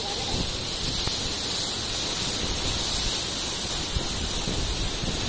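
Steady rushing noise of cyclone winds, with gusts rumbling on the microphone.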